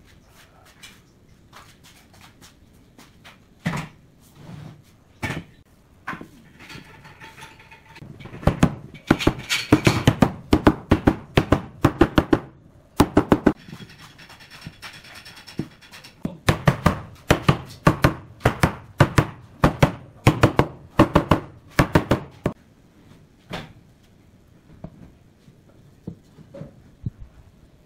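Sharp wooden knocks from a mallet striking pine joinery as the frame parts are driven together, coming in two long runs of quick blows with scattered single taps around them.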